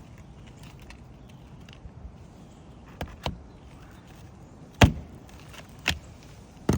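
Footsteps on a shingle roof: a few irregular thuds, the loudest about five seconds in, after a quiet start.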